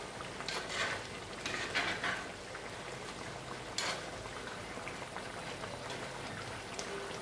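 A thick coconut fish curry bubbling at a simmer while a metal spoon stirs it, with a few louder scraping strokes of the spoon in the pot. The curry has reduced to its finished thickness.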